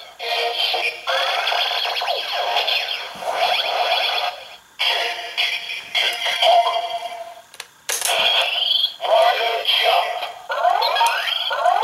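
Kamen Rider Kabuto Kick Hopper Zecter toy playing its electronic sound effects and synthesized voice lines through its small built-in speaker, thin and tinny. It plays in several stretches with short breaks about a second in, just before five seconds and around eight seconds, and gives rising chirping sweeps near the end.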